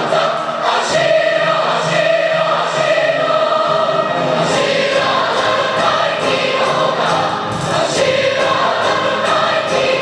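A choir singing in parts, with held, sustained notes.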